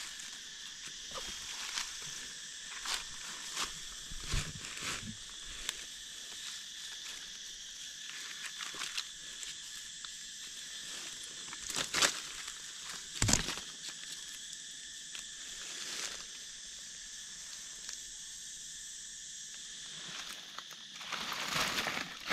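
A steady insect chorus, several high tones held without a break, with scattered crunches and rustles of movement on the forest floor. The loudest crunches come about twelve and thirteen seconds in and again near the end.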